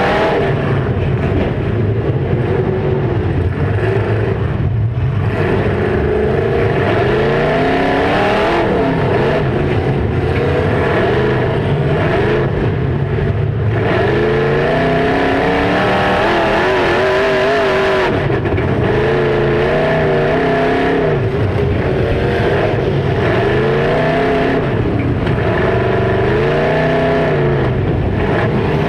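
Demolition derby car engines revving hard and dropping back over and over, several at once, their pitch rising and falling every second or two.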